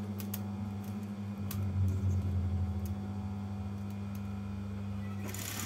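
Fabric and lace being handled by hand, with light rustling and a few soft clicks, over a steady low electrical hum.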